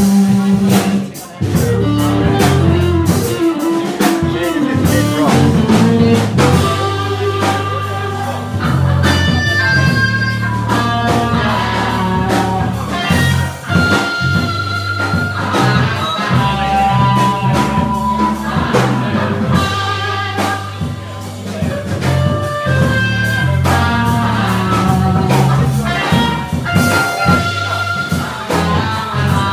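Live instrumental trio of electric guitar, electric bass and drum kit playing a jazz-funk tune: held melodic notes over a steady bass line and drums.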